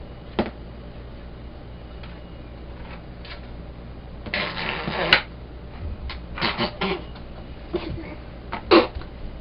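Someone blowing raspberries, spluttering lip-buzzing farting noises made while straining: a long one about four seconds in, then several short ones, the loudest near the end.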